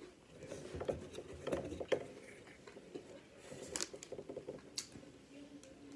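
Eating sounds from crispy chicken salad: irregular crunching and chewing with scattered sharp clicks, busiest in the first couple of seconds, then a few sharp crackles near the end.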